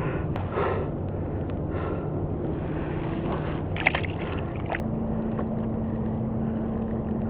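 Water and wind noise around a kayak. About two-thirds of the way in, a small electric trolling motor starts and runs with a steady low hum.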